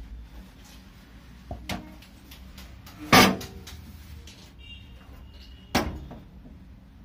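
Stainless-steel gas stove body knocking and clanking as it is handled and turned over. There are two light knocks about a second and a half in, the loudest knock about three seconds in, and another about six seconds in.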